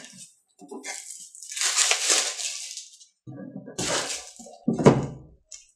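Plastic shrink-wrap crinkling in bursts as it is pulled off a cardboard board-game box. Then the box is handled and turned over, with a sharp knock near the end.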